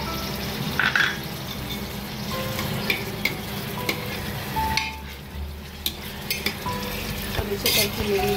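Boneless meat pieces sizzling in hot oil in an aluminium pressure cooker while being fried with ginger-garlic paste, stirred with a steel ladle that scrapes and clicks against the pot now and then.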